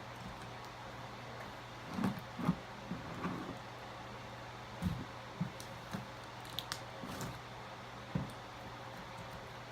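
Slime being squished and kneaded by hand: a scatter of short, soft, wet squishes with pauses between them, and two sharp little clicks about two-thirds of the way through.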